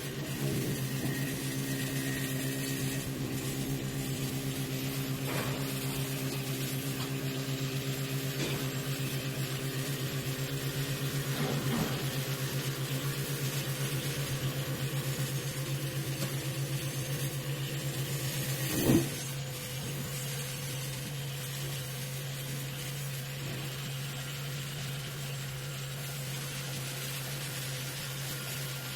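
A 5-axis CNC wood lathe running with a steady machine hum. Higher tones ride over it for about the first twelve seconds. A single sharp knock comes about nineteen seconds in, and the machine then runs on a little quieter.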